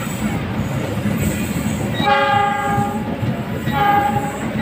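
Passenger train carriages rolling past close by with a steady rumble and wheel clatter on the rails. A train horn sounds two steady blasts of about a second each, the first about two seconds in and the second near the end.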